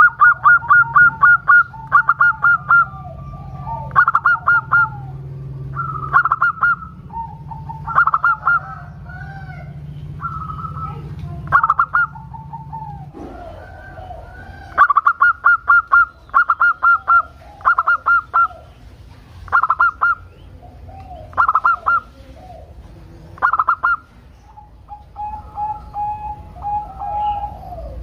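Zebra dove (perkutut) singing its cooing song: repeated bursts of rapid staccato notes every second or two, with softer, lower rolling coos between them.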